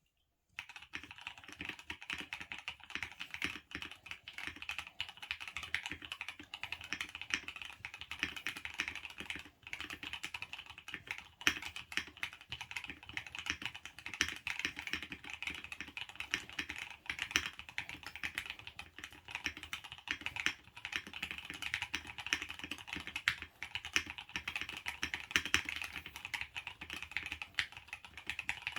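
Fast, continuous typing on a custom 75% gasket-mount acrylic sandwich mechanical keyboard with lubed Gateron KS3 Black switches, a polycarbonate plate, a three-layer tape mod and Akko ASA-profile keycaps. The keystrokes begin about half a second in and run on densely, with brief pauses twice.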